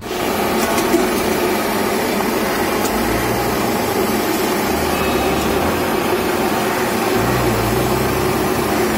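Steady street traffic noise, with the low hum of engines swelling and fading now and then.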